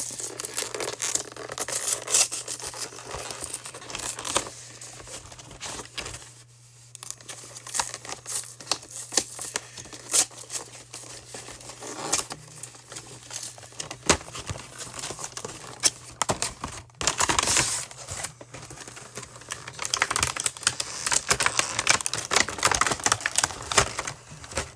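Plastic wrapping and cardboard packaging of a Pokémon trading card box being torn open and handled, with irregular tearing, crinkling and clicks that come in louder bursts.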